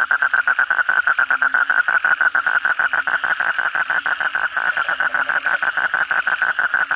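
An Asian common toad (bangkong) calling with its throat sac inflated: a loud, fast trill of evenly spaced pulses, about nine a second, held without a break.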